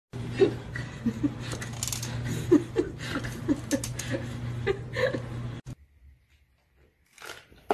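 A person chuckling in short, repeated bursts over a steady low hum. It stops abruptly about three quarters of the way through, leaving only faint sounds.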